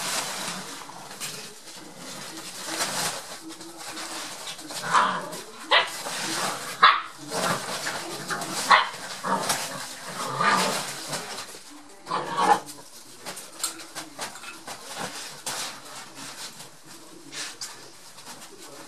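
Seven-week-old Rottweiler puppies barking and yipping in play, several short barks in the middle, over the rustle of nylon play-tunnel fabric as they scramble through it.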